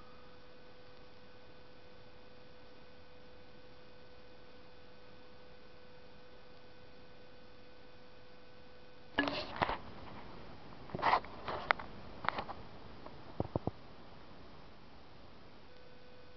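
Steady faint electrical hum with a constant tone and hiss, broken about nine seconds in by a cluster of short sharp knocks and clicks that last about five seconds.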